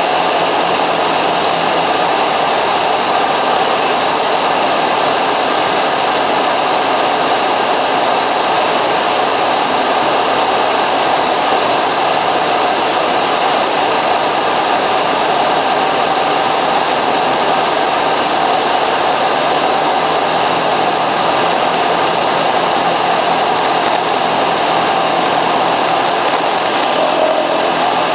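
Cessna 172's piston engine and propeller running at a steady power setting, an unbroken loud drone with no change in pitch.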